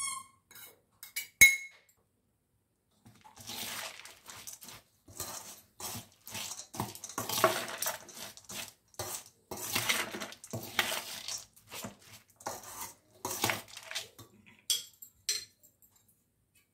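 Metal spoon mixing puffed rice in a stainless steel bowl. A sharp ringing clink of spoon on bowl comes about a second and a half in, then a long run of short scraping, rustling strokes as the mixture is tossed, and a couple of ringing metal clinks near the end.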